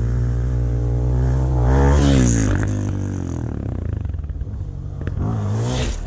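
Dirt bike engines running. One revs up and passes about two seconds in, its pitch rising and then falling, over a steady low engine drone, with another rev near the end.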